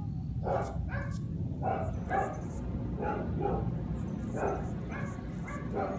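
Dogs barking over and over, short barks about every half second and often in pairs: alarm barking at a hot air balloon flying low overhead. A steady low rumble sits underneath.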